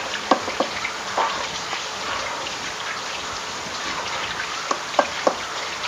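A silicone spatula folding thick cake batter in a stainless steel bowl: steady wet scraping and squelching, with a few light knocks of the spatula against the bowl near the start and again near the end.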